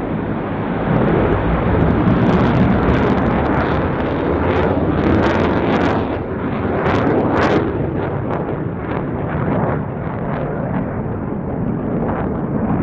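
Dassault Rafale C fighter jet's twin Snecma M88 turbofans in a loud, continuous roar during a display pass, broken by sharp crackles in the middle stretch.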